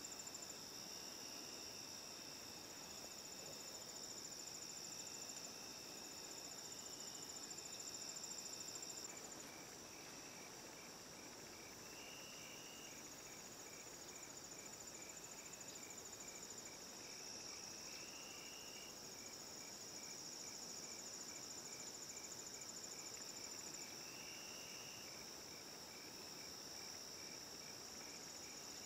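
A late-summer chorus of crickets and other insects: steady high trilling throughout, a lower buzzing call every few seconds, and from about nine seconds in a regular pulsing chirp.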